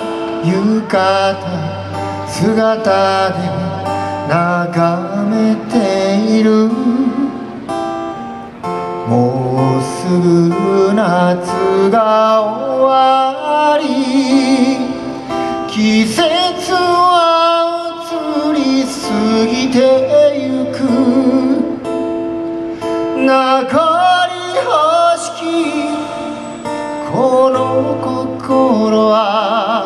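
A man singing a slow song to his own acoustic guitar accompaniment, his held notes wavering with vibrato over steady strummed chords, amplified through a stage PA.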